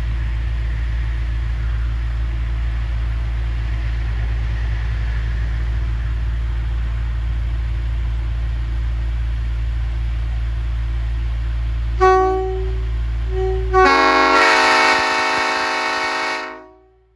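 Train air horn: a few short toots about twelve seconds in, then a long blast of about three seconds sounding a chord of several notes at once, which dies away. A steady low rumble runs under it and stops as the long blast begins.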